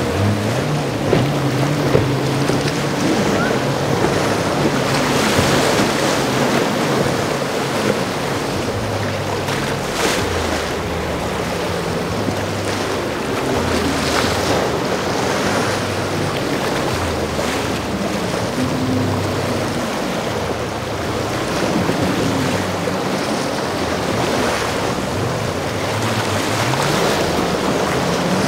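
Boat engines running through the inlet, their pitch rising and falling as the throttle changes, over breaking waves and wind on the microphone.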